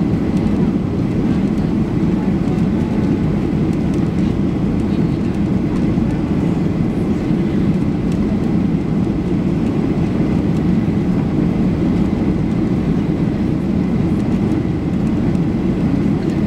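Cabin noise inside a Boeing 737-800 during the climb after takeoff: a steady deep drone of its CFM56-7B turbofan engines and the rushing airflow, with no change in level.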